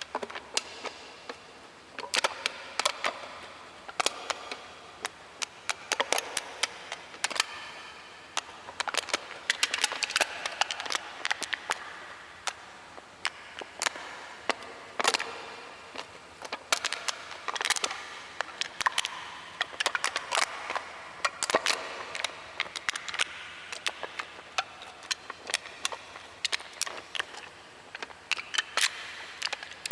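A metal can being crushed and crinkled by hand: irregular sharp crackles and pops of thin metal buckling, in bursts a second or two long with short pauses between.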